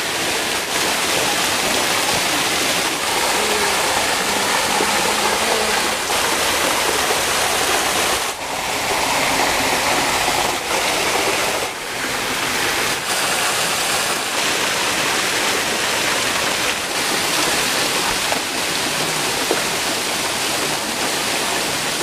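Steady rushing of a small waterfall and its stream, dipping briefly a couple of times.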